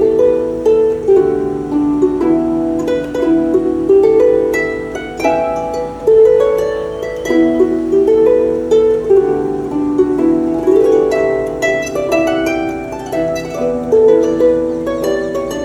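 Background music of plucked strings, harp-like, playing a flowing run of notes.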